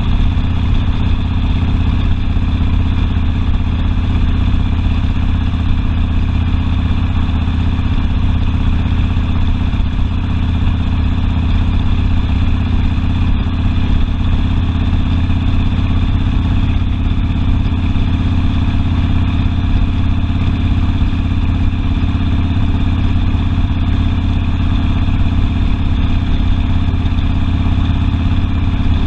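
Harley-Davidson Sportster's V-twin engine running steadily, with no revving or change in speed.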